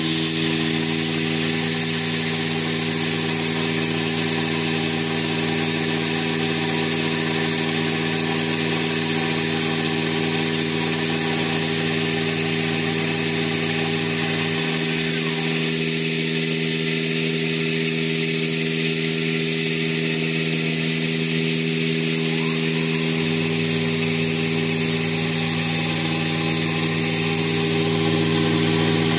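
CNC nesting router running, its spindle giving a steady high whine over a constant low machine hum. One low part of the hum drops out about halfway through and returns some eight seconds later.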